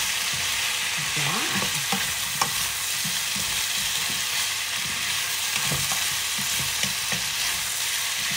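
Chicken feet sizzling in a nonstick frying pan as they are stir-fried, with a spatula scraping and tapping against the pan. There is one sharper knock about two and a half seconds in.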